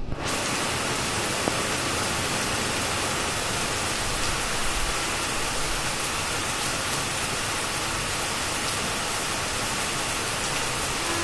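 Heavy rain falling steadily on a flat rooftop and leafy trees: a dense, even hiss of drops.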